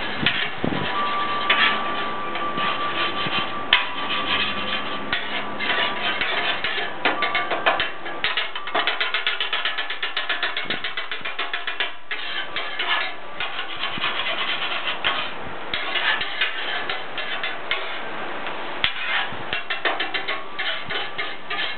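Two metal spatulas scraping, chopping and clattering on the steel top of a Blackstone griddle while stir-frying rice. The strokes come in a steady stream, fastest in a quick rapid-fire run near the middle.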